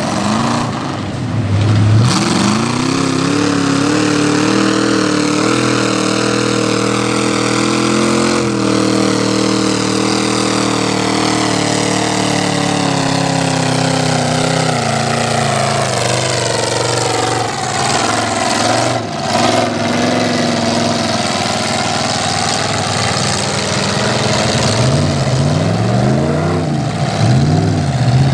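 Lifted Chevy pickup mud truck's engine at high revs as it churns through a mud pit: the revs climb about two seconds in, hold high for roughly ten seconds, then sink away. Near the end it is revved up and down several times in quick succession.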